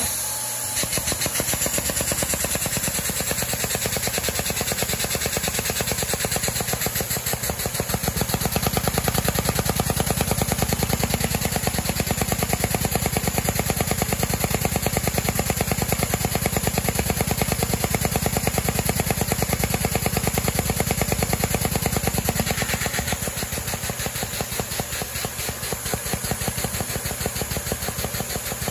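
Single-overhead-cam LEGO vacuum engine running fast, a rapid, even clatter from its moving parts over the steady rush of the vacuum cleaner that drives it. The clatter gets a little quieter about three-quarters of the way through.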